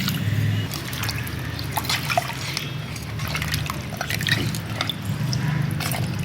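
Water pouring and dripping into a pressure cooker of goat head meat, with scattered small clicks and knocks of the pot and utensils over a low steady hum.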